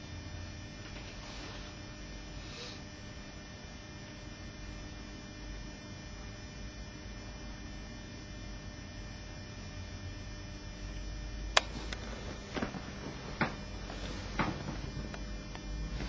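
Steady low electrical mains hum. Near the end come four sharp clicks or knocks, the first the loudest, over a slightly louder low rumble.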